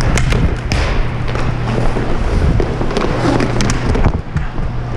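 Inline roller hockey play: skate wheels rolling and scraping on the rink floor over a steady low hum, with several sharp clacks in the first second and a few more about three and a half seconds in.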